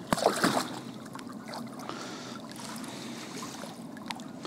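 Water splashing and trickling around a landing net held in the water beside a kayak as a caught zander is handled in the net to unhook it. A short louder splash comes just after the start, then a steady low trickle with a few light knocks.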